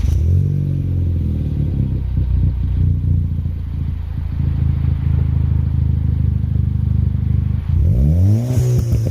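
2015 Ford Fiesta ST180's turbocharged 1.6-litre four-cylinder idling through a 3-inch non-resonated aftermarket exhaust, the idle easing down just after starting. Near the end a single quick throttle blip sends the revs up and straight back to idle.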